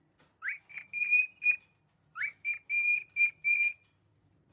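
Parrot whistling a short tune twice: each phrase opens with a rising note, followed by several short high notes at one pitch.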